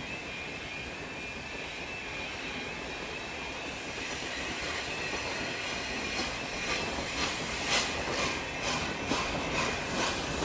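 Passenger train hauled by LNER A4 steam locomotive 60009, heard from an open carriage window: a steady running noise of the coaches on the rails, with a rhythmic beat of about two a second coming in after about six seconds.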